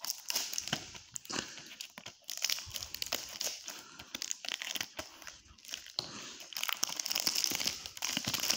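Clear plastic shrink-wrap crinkling and tearing as it is picked at and peeled off a CD jewel case, with many small irregular crackles, thicker and louder in the last couple of seconds.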